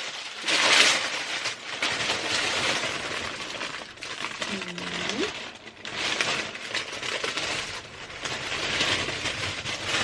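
Paper packaging and the vegan leather vest rustling and crinkling in repeated irregular bursts as the vest is unwrapped and handled.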